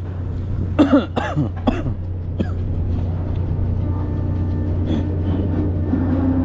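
Steady low drone of a fishing boat's engines and machinery, with a few short voice sounds like coughs about a second in and a steady higher tone joining the drone in the second half.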